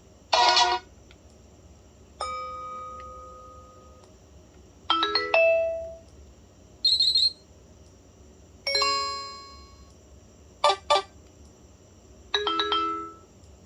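BlackBerry Pearl 8120 alert tones played one after another: about seven short chimes and blips, each a second or less and separated by brief pauses. One pair of them is two quick blips in a row near the end.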